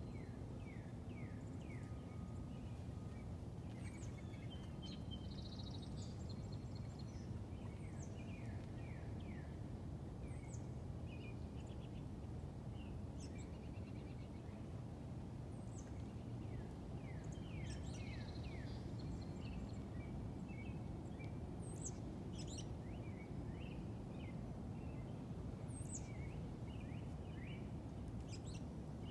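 Outdoor evening ambience: a steady low background rumble, with scattered bird calls throughout, mostly short downward-sliding notes in quick series, plus a few brief trills and high chirps.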